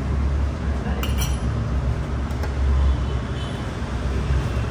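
Steady low rumble of street traffic, with a few light clinks of spoons on plates about a second in and again a little later.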